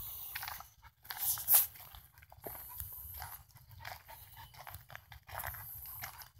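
Footsteps scuffing on gritty pavement, with irregular crunches and rustling close to the microphone, the loudest about one and a half seconds in.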